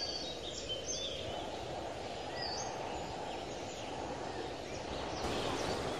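Outdoor ambience: a steady low rushing noise with scattered short bird chirps, the noise growing louder about five seconds in.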